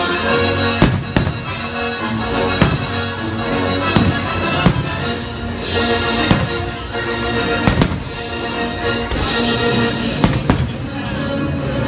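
Aerial fireworks shells bursting, a sharp bang every second or so, over loud music that plays throughout.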